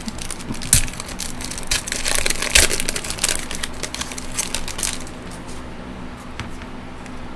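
A 2013 Topps Strata trading-card pack wrapper being crinkled and pulled open by hand: a dense run of crackles and clicks that stops about five seconds in.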